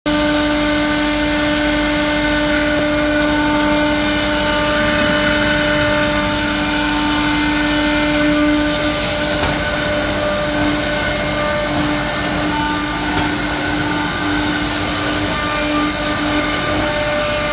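Precizia București F.A.S. top-spindle milling machine's high-speed router spindle running: a steady, loud motor whine with a strong hum note that wavers in the second half.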